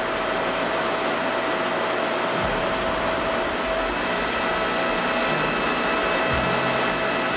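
Steady hiss of a compressed-air gravity-feed spray gun spraying sealer.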